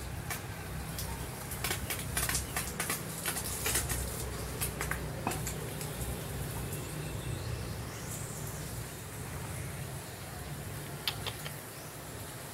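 Scattered crackling clicks and rustling, thickest in the first few seconds with a couple more near the end, over a steady low rumble.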